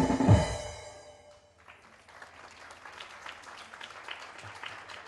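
Bharatanatyam dance music with drum strokes ends in the first second, dying away; about a second and a half in, an audience starts applauding.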